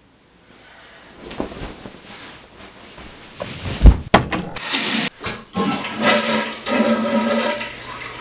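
Water rushing, rising about half a second in, with a heavy thump just before four seconds and a few sharp clicks right after it.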